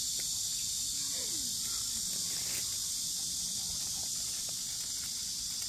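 Steady, high-pitched chorus of summer insects, an unbroken shrill drone.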